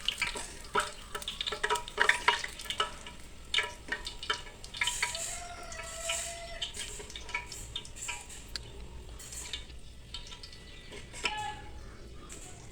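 Sliced onions deep-frying in hot oil with a steady sizzle, and a metal spoon clinking and scraping against the pan as the browned onions are stirred and lifted out. The clinks come thickest in the first few seconds, after which the sizzle runs on with only occasional knocks.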